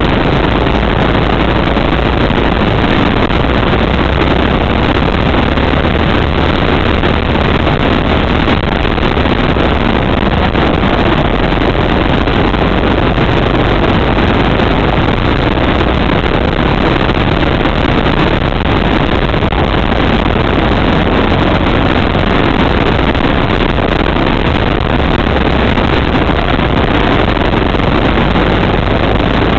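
Go-kart engine running under racing load, heard loud and steady from a camera mounted on the kart, with wind on the microphone.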